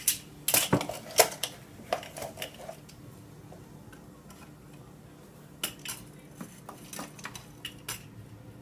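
A set of plastic measuring spoons clattering and knocking against each other and a plastic tub while baking soda is scooped. The clicks come in two clusters, one at the start and another from about halfway through.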